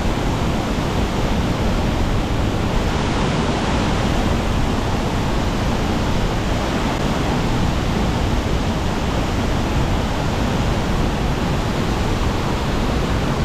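Waterfall rushing: a steady, loud roar of falling water and spray.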